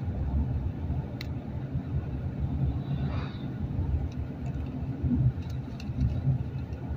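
Steady low rumble of a car driving, its road and engine noise heard from inside the cabin, with a few faint ticks.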